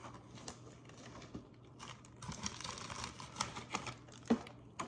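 Snack packaging being handled: foil and plastic crinkling and rustling, with small clicks and one sharper click near the end.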